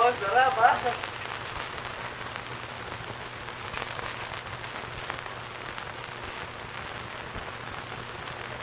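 A short voice sound in the first second, then a steady hiss with faint scattered crackles over a low hum: the surface noise of a 1955 film's worn soundtrack.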